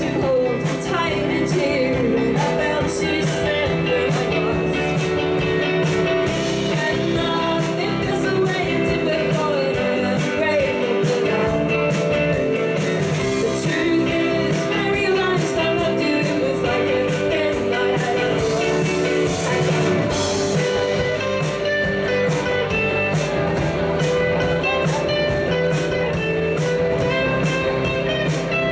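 Indie pop band playing live: a woman sings the lead over strummed guitar and the full band.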